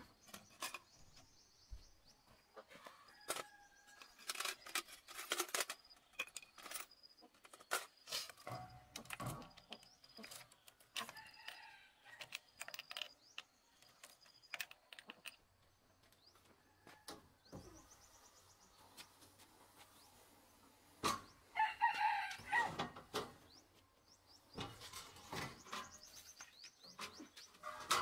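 Scattered clicks and knocks of metal tool parts being handled and fitted, as a chainsaw bar attachment is mounted on an angle grinder. A rooster crows about three-quarters of the way through, the loudest sound.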